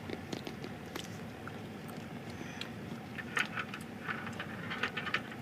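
Low steady hum inside a car waiting at a red light, with a few faint short clicks and taps in the second half.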